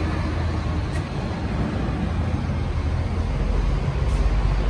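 Steady low rumble of motor vehicle noise with a broad hiss over it, without any distinct rhythm or events.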